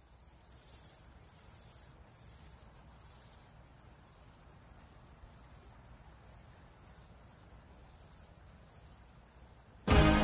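Faint night-time crickets chirring steadily, with a rapid, even pulsing. Loud music comes in suddenly near the end.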